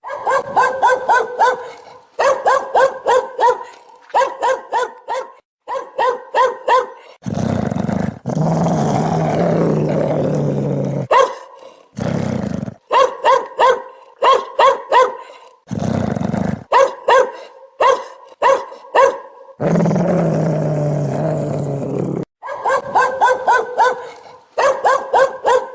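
Dog-barking ringtone: quick runs of barks, several a second, alternating with longer low growls, repeating over and over.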